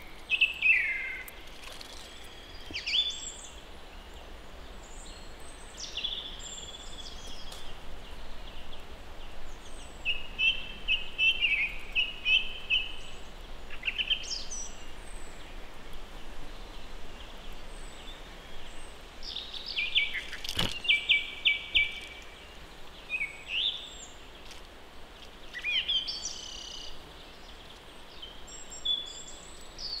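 Wild songbirds singing and calling, with short chirps, whistles and quick sweeping notes coming and going, and a fast trill about two-thirds of the way through. A single sharp knock sounds in the middle of the trill.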